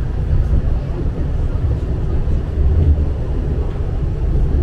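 Low, uneven rumble of a tram running, heard from inside the car.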